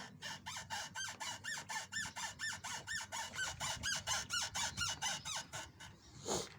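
Fourth-generation Hyundai Elantra's suspension squeaking over and over, about four short squeaks a second, each bending in pitch, with one click near the end. The owner suspects worn stabilizer end links after 34,000 km, or possibly the control-arm bushings.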